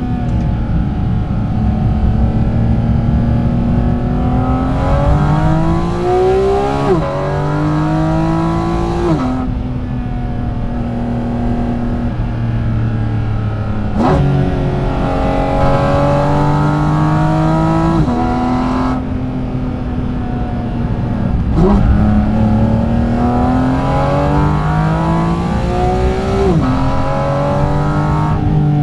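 Porsche 718 Cayman GT4 RS's naturally aspirated 4.0-litre flat-six pulling hard through the gears, its note climbing and then dropping sharply at each upshift, three times. Twice it jumps up suddenly, as on a downshift.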